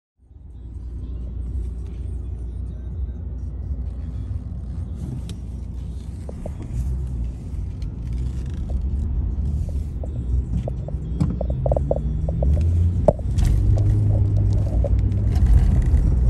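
A car driving on the road: a steady low rumble of engine and road noise that grows louder toward the end, with a few faint clicks near the middle.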